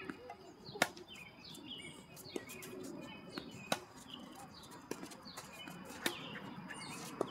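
Tennis balls struck by racquets and bouncing on a hard court during a rally: a series of sharp pops about a second apart, the loudest near the start. Birds chirp high in the background throughout.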